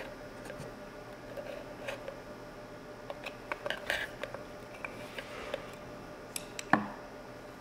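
Metal tools at work on a Yamaha Rhino's clutch as its halves are pried apart: scattered light clicks and clinks, with one louder metal clank and short ring near the end.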